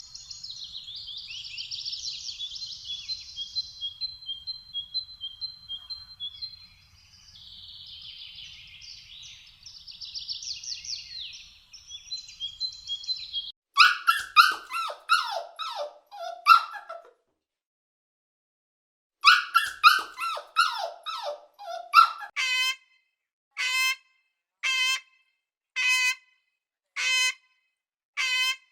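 High-pitched animal calls. For about the first thirteen seconds there is rapid chirping and trilling with thin, steady whistle-like tones. It is followed by two bursts of sharp calls falling in pitch, then single calls repeated about once a second.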